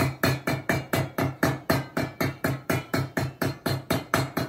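Small hammer tapping along the teeth of a new handsaw laid on a hammer head clamped in a vise, a steady run of sharp metal-on-metal taps, about four a second. The tapping flattens the teeth to take out excess set, about twice as much as the saw needs.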